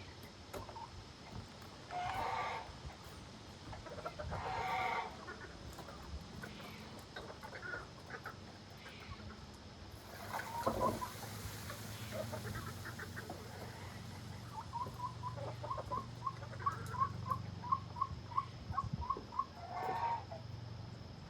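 Chickens clucking and calling, ending in a run of about a dozen short, evenly spaced clucks, roughly two a second. A faint, steady low hum sits underneath for most of it.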